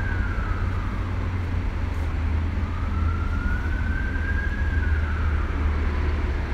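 Emergency vehicle siren in wail mode, heard from inside a car: one tone rising slowly and then falling, about once every four seconds, over a steady low rumble.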